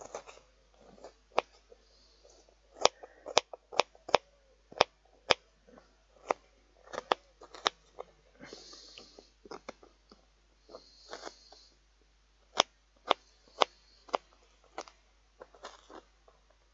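A kitchen knife chopping an onion small on a plate: irregular sharp clicks of the blade striking the plate, two or three a second, with a few brief hisses in between.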